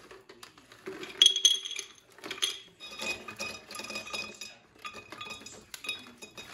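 Cashews poured from a foil pouch into a tall glass jar: nuts clattering and clinking against the glass, a sharp ringing clink about a second in, then bursts of rattling as the pours go on.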